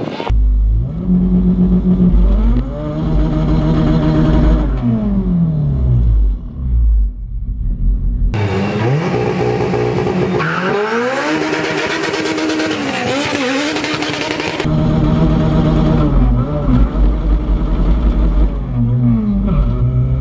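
Turbocharged LS-VTEC engine of a 1995 Honda Civic hatchback revving hard under acceleration. Its pitch climbs and drops back several times.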